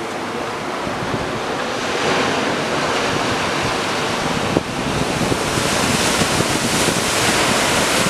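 Steady rushing noise of wind and waves, with a brief click about four and a half seconds in.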